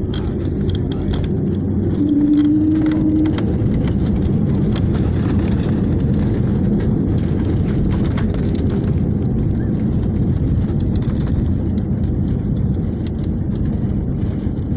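Steady low rumble heard inside a jet airliner's cabin as it rolls at speed along the runway: jet engine noise and wheel rumble, with a brief faint hum about two seconds in.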